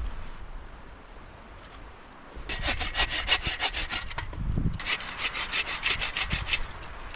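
Hand saw cutting through wood with quick back-and-forth strokes, in two runs with a short pause between, starting about two and a half seconds in.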